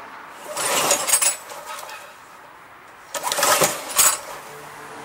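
Craftsman Gold self-propelled lawn mower being pull-started: two rips of the recoil starter cord, each a noisy whir about a second long, about two seconds apart. The engine, which has sat unused for a long time, does not catch.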